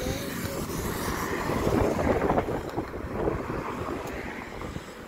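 Motorcycle engine running, with wind on the microphone.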